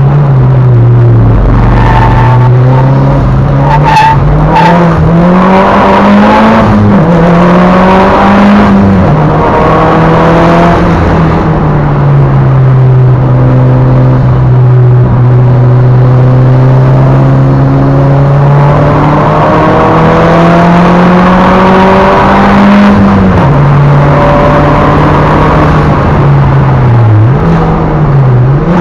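Mitsubishi Lancer Evolution VIII's turbocharged 2.0-litre four-cylinder engine driven hard, heard loud from inside the cabin: the engine note climbs and drops again and again through gear changes and lifts, holding steady for several seconds midway. A couple of sharp cracks come about four seconds in.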